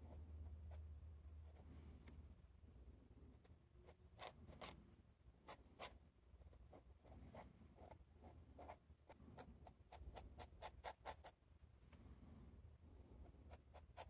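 Faint scratching of a fine fountain pen nib on paper, in quick short hatching strokes that come in clusters, with a fast run about two-thirds of the way in. A low steady hum lies underneath.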